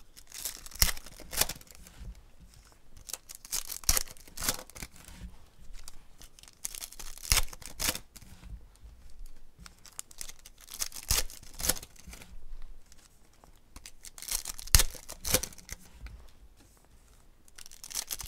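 Foil trading-card pack wrappers being torn open and crinkled by hand, in irregular bursts of tearing and crackling.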